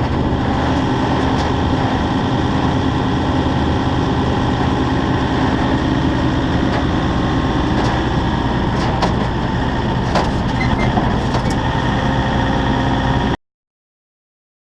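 Heavy diesel engine running steadily, with a few light clicks over it; the sound cuts off abruptly near the end.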